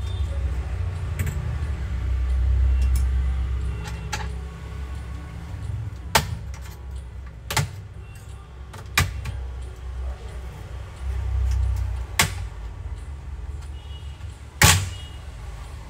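Laptop bottom case being worked loose: a low rumble of handling in the first few seconds, then about five sharp clicks spaced a second or more apart as a pry tool snaps the plastic clips of the HP Envy x360 13's bottom cover free. The last click is the loudest.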